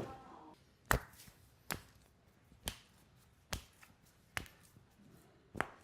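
A series of six sharp, short clicks, roughly one a second at fairly even spacing, the first the loudest.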